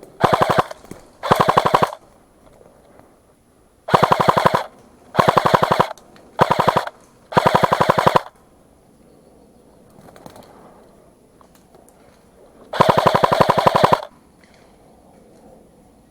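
Airsoft gun firing on full auto in seven short bursts of rapid shots, the last burst the longest.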